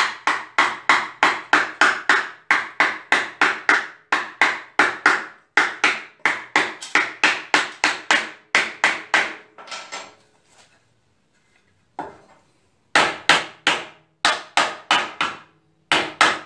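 Claw hammer striking a wooden joint over and over, about four blows a second, driving the tenon of one piece into its interlocking joint. The blows stop around ten seconds in, with one lone knock, then resume in a second run near the end.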